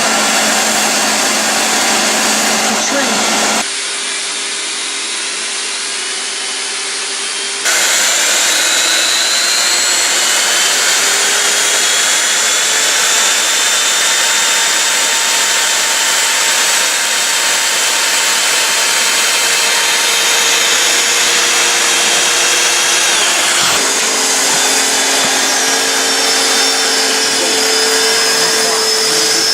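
Leister hot-air tools running: a steady rush of blown air over a motor whine, the whine drifting slightly in pitch. The sound changes abruptly at about four, eight and twenty-four seconds in as a different tool takes over.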